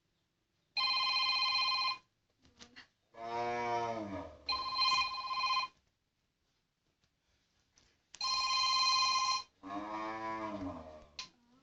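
A telephone ringtone rings three times in steady bursts of about a second each. After the first and third rings a cat gives a long meow that falls in pitch.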